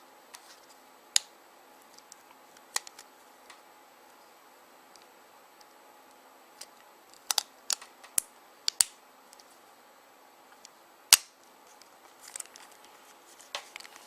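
Scattered sharp clicks and taps of a BlackBerry 9650's plastic housing and small parts being handled during reassembly. A cluster comes a little past halfway, and the loudest click is about 11 seconds in.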